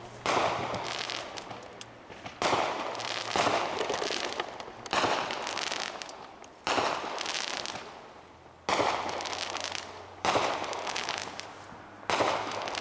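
Fireworks bursting about eight times, one every one to two seconds. Each is a sudden bang followed by a crackling tail that fades over a second or more.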